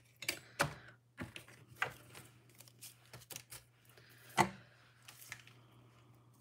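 Scattered light clicks and taps, with one louder knock about four and a half seconds in, over a faint steady low hum.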